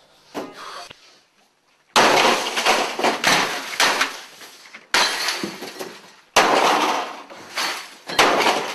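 A desktop computer and desk equipment being smashed: four sudden loud crashes of breaking, clattering plastic and glass, starting about two seconds in and following one another every second or two.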